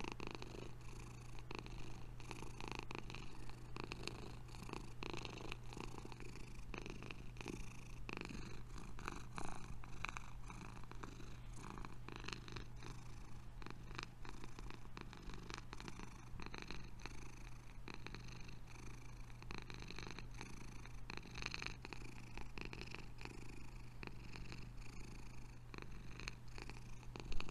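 Domestic cat purring steadily as it lies relaxed and drowsy.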